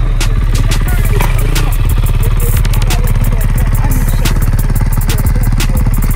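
A dirt bike engine idling under a hip-hop instrumental with rapid hi-hats and deep bass.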